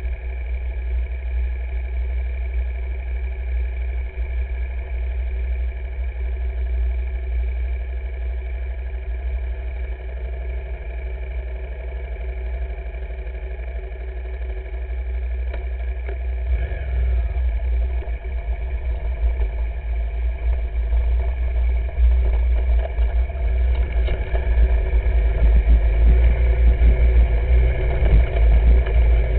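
Motorcycle engine running steadily while riding, heard from on the bike, with a heavy low rumble of wind on the microphone. It grows louder in the last third.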